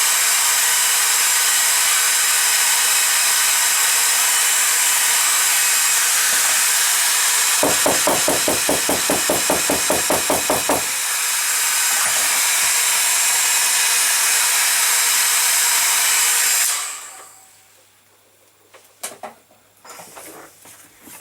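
Hairdryer blowing steadily with a high whine, speeding the setting of freshly applied glue. For about three seconds midway the airflow flutters rapidly, and about four seconds before the end the dryer switches off, leaving a few faint clicks.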